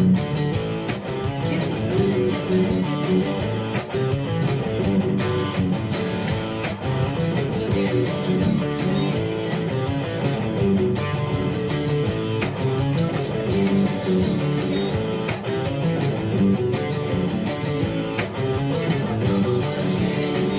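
Instrumental guitar music: a steady run of picked and strummed notes with no singing.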